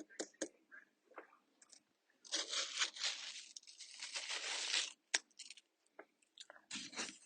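Someone biting and chewing watermelon close to the microphone: scattered sharp mouth clicks, then a long stretch of crunching from about two to five seconds in, then a few more clicks and crunches near the end.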